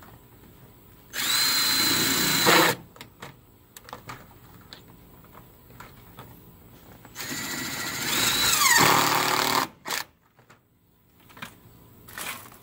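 Cordless drill running in two bursts as it drives fasteners into the overhead track, each burst with a steady high whine. The second burst is longer, and its whine drops in pitch as the motor winds down. Light clicks come between the bursts.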